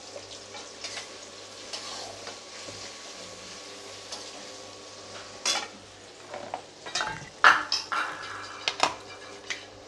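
Flat metal spatula stirring and scraping a tomato-and-spice masala in a metal karahi, over a steady low sizzle of the frying masala. Sharp scrapes and clinks of the spatula against the pan come about halfway through and cluster in the last few seconds.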